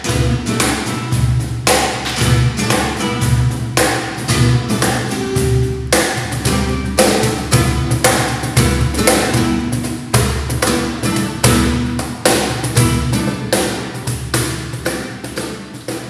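Nylon-string flamenco guitar played with sharp strummed strokes and plucked notes in a steady rhythm, with a cajón slapped in time. The playing gradually gets quieter near the end.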